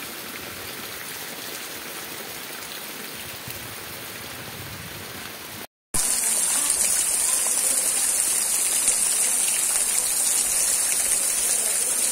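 Steady rain falling on trees and ground. It cuts out for a moment about six seconds in, then resumes as a louder, heavier downpour with a strong hiss.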